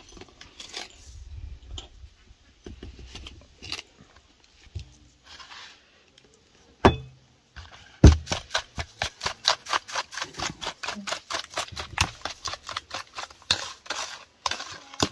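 Metal spoon beating eggs in a bowl, clinking against the bowl about four times a second from about halfway in, after a few scattered taps and knocks.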